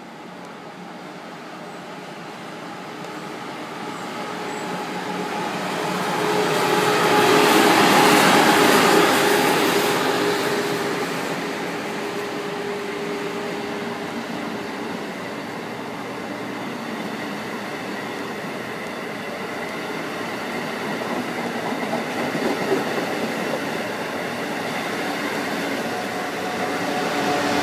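Amtrak Acela Express electric trainset running through the station. The sound builds to its loudest about eight seconds in as the lead power car goes by. The cars then roll past with a steady rumble and a steady whine, and the sound swells again near the end as the rear power car comes by.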